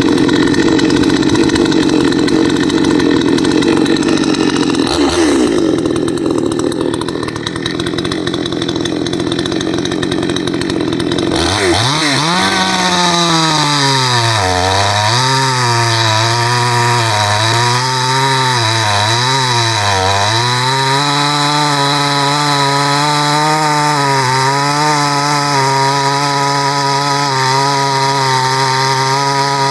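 A 62cc Chinese two-stroke chainsaw, new and still being run in, cutting through a log at full throttle for about eleven seconds. Out of the cut, its engine revs drop and rise several times, then hold steady at high revs.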